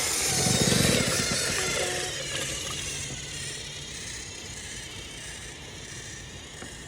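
Motorized Thomas & Friends toy train whirring and rattling along a plastic track, growing fainter over the seconds as it moves away.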